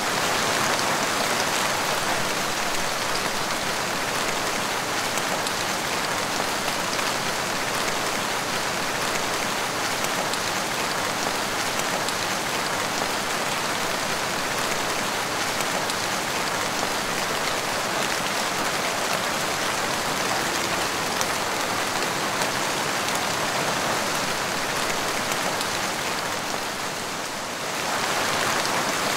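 Steady rain splashing on a wet tiled porch floor, an even hiss of many drops. It eases slightly for a moment near the end, then picks back up.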